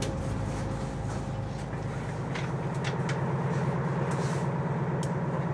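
Steady low hum of a fishing boat's machinery running, growing a little louder about halfway through, with a few light knocks.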